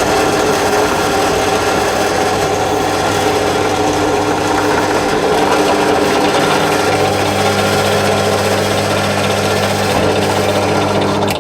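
Energer 350 W pillar drill's electric motor running steadily with an 8mm wood bit fitted, as it bores a test hole in wood. The low hum shifts slightly about halfway through, and the sound cuts off suddenly at the end.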